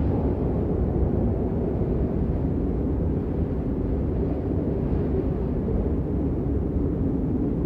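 Blizzard wind blowing in a steady, low rush, with no gusts or breaks standing out.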